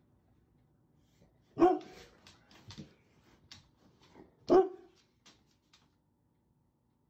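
A large dog barks twice, single deep woofs about three seconds apart, with a few light clicks between.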